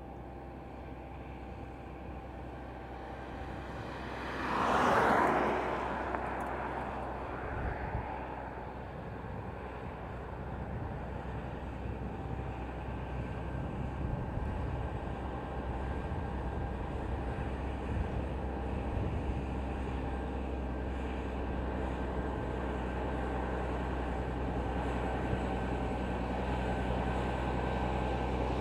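Heavy diesel truck engine pulling fully loaded up a steep grade, a steady drone that slowly grows louder. About five seconds in there is a brief, loud burst of noise.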